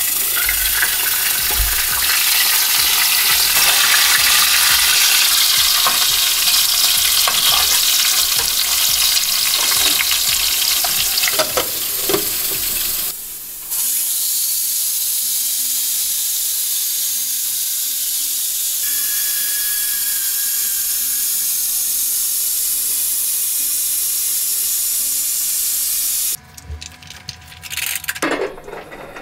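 Food frying in hot oil in a pan: a loud, steady sizzle, with a utensil scraping and stirring through the first half. The sizzle cuts off suddenly near the end, leaving a few light clicks.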